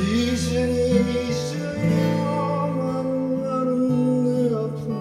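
Live acoustic guitar and a man's singing voice: the guitar strums chords while he slides up into one long held note and sustains it until near the end.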